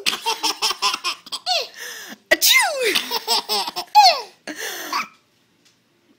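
A baby laughing in a run of high-pitched squeals and giggles, many sliding down in pitch, breaking off about five seconds in.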